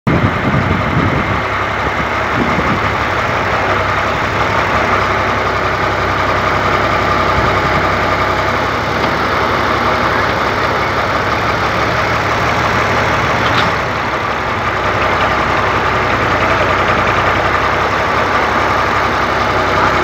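Backhoe loader's diesel engine running steadily while the arm digs soil and swings it over to dump into a trolley, with a few knocks near the start.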